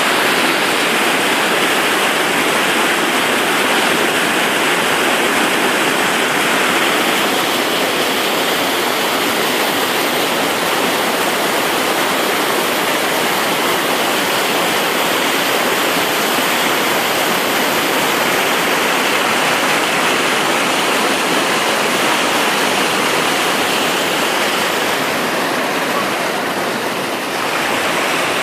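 Waterfall: fast-falling water making a steady, loud rushing, dipping slightly near the end.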